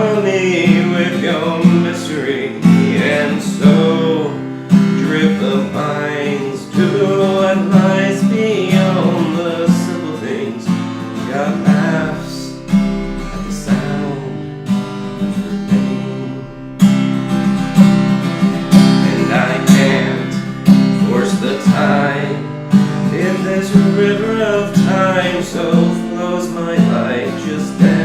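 Instrumental passage of a song: strummed acoustic guitar keeping a steady rhythm, with a melody line moving above it.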